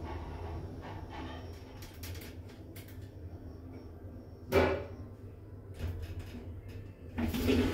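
Kone passenger lift car with a low steady hum, one sharp clunk about four and a half seconds in and a few lighter clicks after it. Near the end the doors open and a louder wash of lobby noise comes in.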